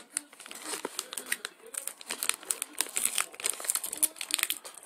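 Plastic wrapper of a pack of football trading cards crinkling in quick, irregular crackles as it is handled and opened.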